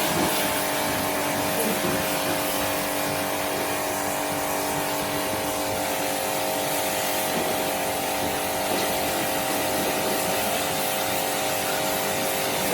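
A machine's motor running steadily at constant speed, giving an even hum with several fixed tones.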